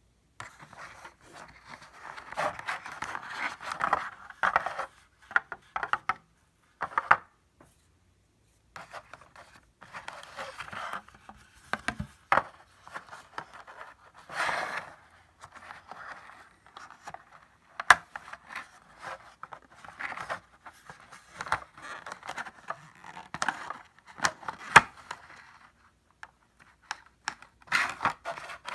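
Thin clear plastic packaging tray being handled as a braided cable is pulled out of it: irregular crinkling and scraping of the plastic with sharp clicks and snaps, broken by short pauses.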